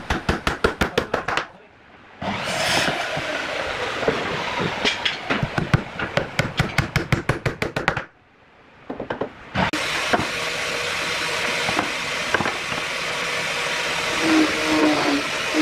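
Woodworking power tool at work: two runs of rapid, even knocking at about eight a second, each broken off by a short pause, then a steady noisy run near the end.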